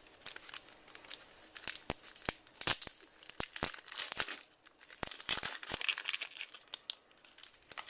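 A baseball card pack wrapper being torn open and crinkled, a run of sharp crackles and papery tearing noises that come and go irregularly.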